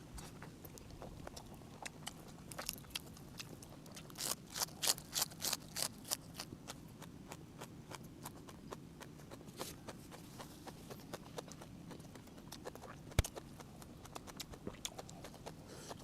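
Close-up mouth sounds of someone eating steamed egg squid: a run of short wet clicks and smacks from chewing, thickest about four to six seconds in, with one sharp knock a little after thirteen seconds.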